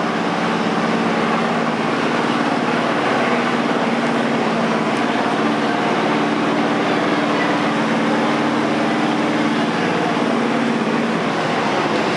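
Riding lawn mower engines running steadily, with a constant engine hum and noise and no revving or change in pitch.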